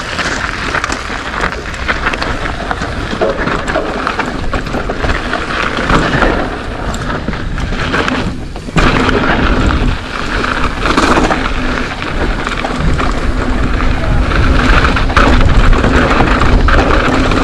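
Mountain bike descending a dirt trail: heavy wind buffeting on the camera microphone mixed with tyre rumble and rattling from the bike. The noise drops out briefly about halfway through.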